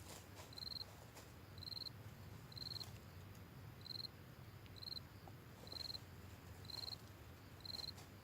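Faint insect chirping: short, high chirps in a steady rhythm, about one a second, with a few soft clicks.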